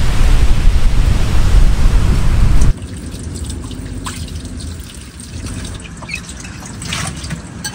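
Strong wind buffeting the microphone with a loud low rumble. About three seconds in it gives way suddenly to a much quieter stretch of water dripping and trickling, with scattered small plinks and clicks.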